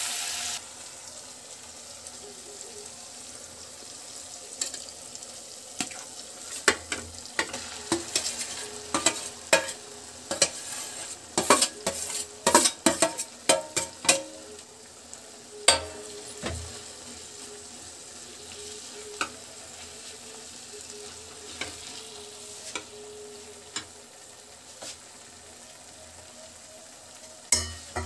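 Steel spatula stirring and scraping through frying onion-tomato masala in a kadai, over a faint steady sizzle that is louder for the first half second. Crowded sharp taps and scrapes of the spatula on the pan come in the middle stretch, where crumbled paneer is tipped in and mixed through, and they thin out towards the end.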